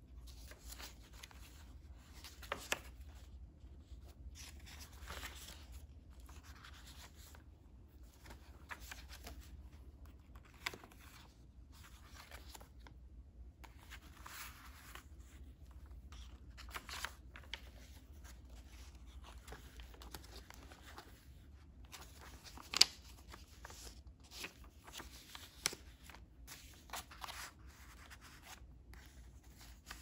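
Paper pages of a handmade junk journal being turned and handled, soft swishes and rustles every second or two, with one sharp tap about three quarters of the way through. A low steady hum lies underneath.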